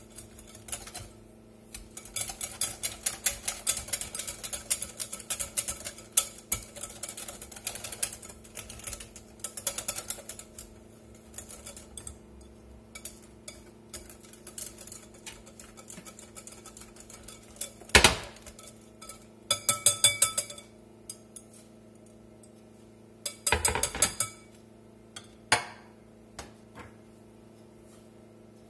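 Wire whisk beating pancake batter in a glass bowl: a fast, continuous clatter of the wires against the glass that eases off after about ten seconds. Later come one sharp knock and two short bursts of rapid rattling.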